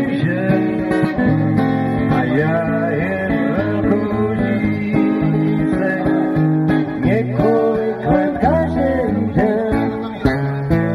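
Acoustic guitar strummed, with a man singing.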